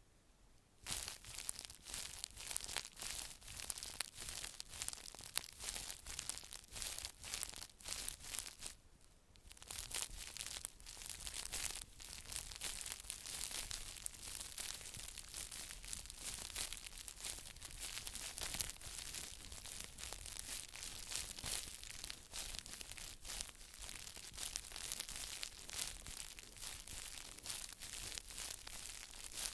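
Close-miked ASMR trigger sounds: dense crinkling and scratching. They start about a second in and pause briefly about nine seconds in.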